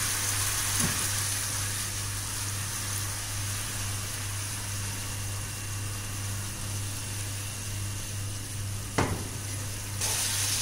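Soy sauce, brown sugar and garlic sauce sizzling steadily in a frying pan as it is mixed with a silicone spatula, over a constant low hum. A single sharp knock comes about nine seconds in, and the sizzle grows louder near the end.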